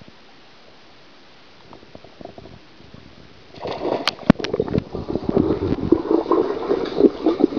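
A dog jumping into a swimming pool with a splash about three and a half seconds in, followed by a steady churn of gurgling, bubbling water heard through an underwater camera.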